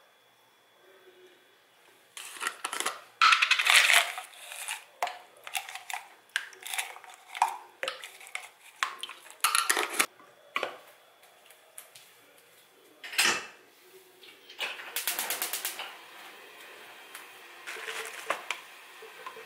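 Clicks, clinks and knocks of kitchen handling: a plastic tub of dried broth tablets opened and handled, the tablets dropped into a ceramic saucepan of water, and things set down on a wooden cutting board. About fifteen seconds in comes a quick run of rapid clicks.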